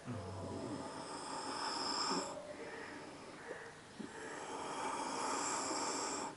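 A man puffing on a tobacco pipe: two long airy draws through the stem, each about two seconds, with a breath of smoke blown out between them.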